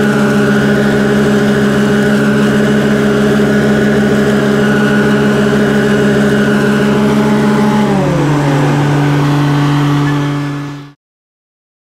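New Holland tractor engine running steadily while mowing; about eight seconds in its speed drops and it settles to a lower, steady note. The sound then fades and cuts off to silence near the end.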